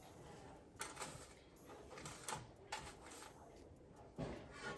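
Faint clicks and taps of metal kitchen tongs setting salmon pieces into a foil-lined air fryer basket, a few separate knocks with a slightly louder clatter near the end.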